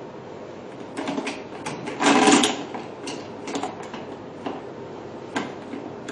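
Scattered clicks and knocks of plastic and metal machine parts being handled and tightened, with one louder rattling clatter about two seconds in.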